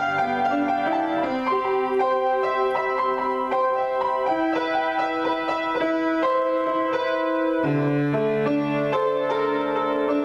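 Solo piano improvisation: chords and melody notes played continuously. The low bass notes drop out about a second in and come back about eight seconds in.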